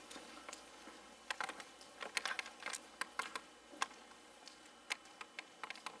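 Scattered light clicks and taps at an irregular pace, clustered around the middle of the stretch.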